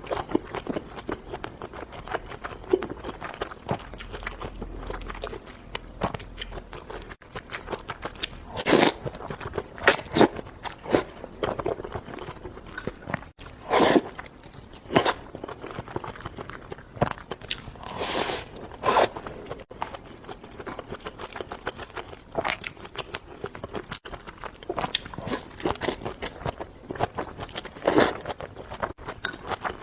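A person biting into and chewing crunchy food, green chilies among it: irregular wet crunches and crackles, with louder sharp bites every few seconds.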